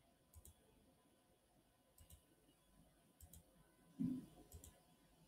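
Faint computer mouse clicks, each a quick press-and-release pair, about every second and a half, as the slides step forward. A brief low thump about four seconds in.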